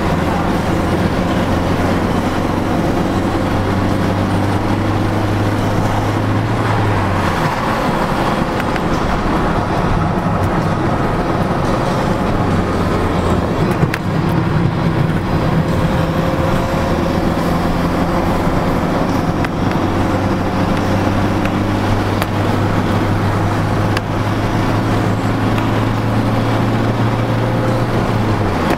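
Citroën Xsara 2.0 HDi four-cylinder turbodiesel engine pulling under load, heard from inside the cabin over tyre and road noise. The engine note climbs slowly, falls away abruptly about seven seconds in, comes back a few seconds later and climbs again, then falls away near the end.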